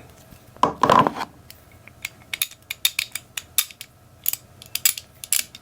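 Craftsman 44809 half-inch drive ratchets being worked and handled, which are having issues: a louder metallic clatter about a second in, then a string of short, irregular ratchet clicks.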